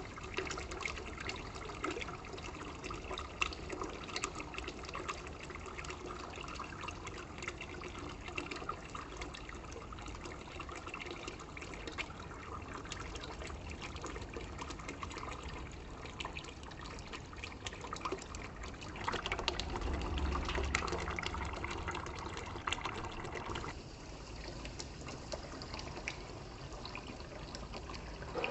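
A stream of water pouring into a container of submerged poppy seeds: steady trickling and splashing with fine crackling bubbles. It swells to a louder, fuller gush for a few seconds about two-thirds of the way through.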